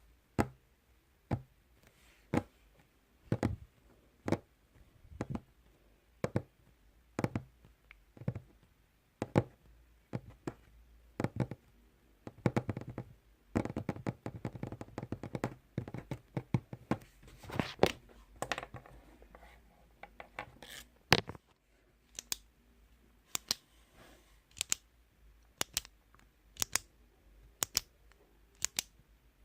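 Repeated sharp clicks, about one a second at first. A busier stretch of scraping and clicking follows in the middle, then quicker, crisp clicks near the end.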